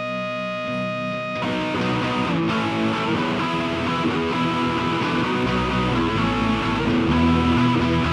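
Instrumental rock-band music: a held keyboard chord, then guitars come in about a second and a half in, with bass joining about halfway through.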